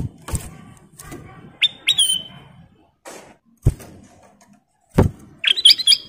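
Caged kutilang emas, a bulbul, moving about its cage with several dull thumps. It gives a short two-note whistle about two seconds in and a quick run of chirpy whistled notes near the end.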